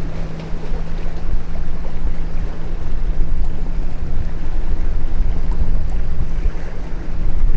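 Wind rumbling on the microphone over open water, with a steady low hum underneath.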